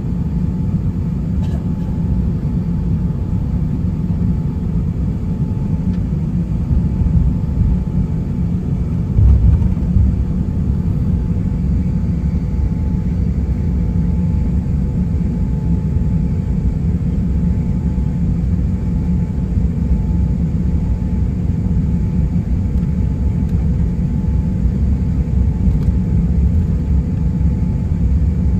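Inside an Airbus A350-900 cabin while the airliner taxis: the steady low rumble of its Rolls-Royce Trent XWB engines at taxi power and the rolling airframe, with a faint steady hum over it. A brief louder thump comes about nine seconds in.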